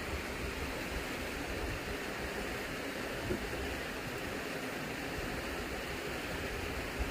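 Stream water running, a steady even rush.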